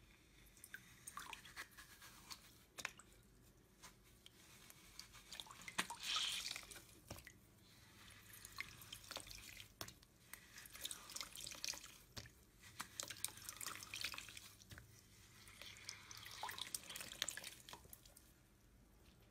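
Hands squeezing, tearing and kneading a glittery slime in a bowl: quiet wet squelches with many small crackling clicks, a little louder about six seconds in.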